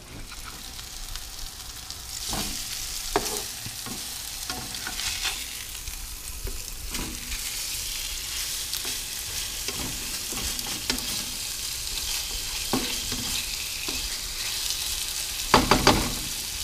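Sierra mackerel fillets sizzling in butter and garlic in a nonstick frying pan, a steady frying hiss that builds over the first couple of seconds. A spatula knocks and scrapes against the pan now and then, with a louder clatter near the end.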